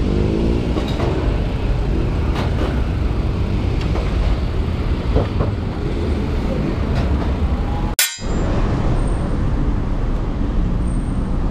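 Steady wind rumble on the microphone mixed with road traffic noise while cycling along a city road. The sound drops out completely for a moment about eight seconds in.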